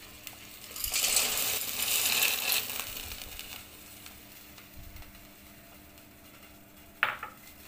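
Dry macaroni pasta tipped from a glass bowl into a pot of boiling water, rattling and splashing for about a second and a half. A single sharp click near the end.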